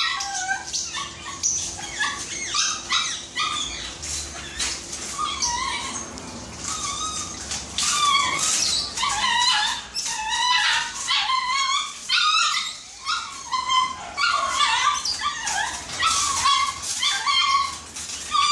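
Shih tzu puppy whining and yelping over and over while being bathed.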